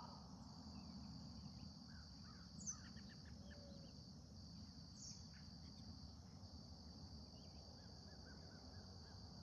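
Faint outdoor ambience: a steady high-pitched insect chorus, with soft bird chirps scattered through and a short sharp chirp a little under three seconds in.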